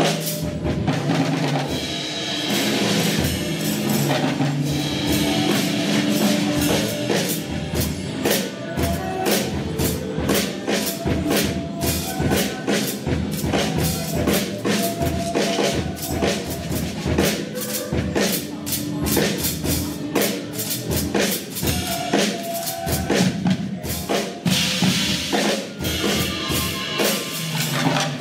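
Drum kit played live in a busy, continuous rhythm, with low pitched notes sounding underneath.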